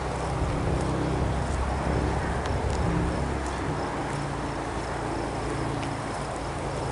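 A small vehicle's motor hums steadily while moving, its pitch shifting slightly. A faint, high insect chirp joins about halfway through.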